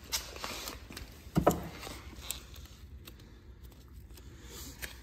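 Light clicks and knocks of hands handling a carbon-fibre front grille against a car's front end, with one louder thump about a second and a half in.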